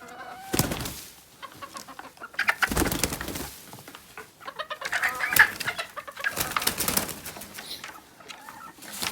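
Bantam chickens clucking and squawking, with three noisy bursts of rustling: about half a second in, around three seconds in, and a longer one from about five to seven seconds. The birds are frightened by freshly spread wood chips.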